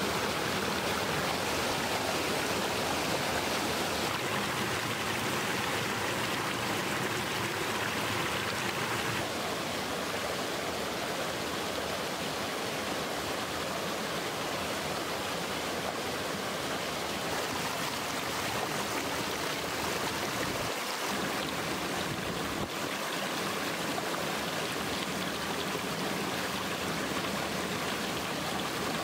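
Shallow stream rushing over rocks, a steady even wash of running water that drops slightly in level about nine seconds in.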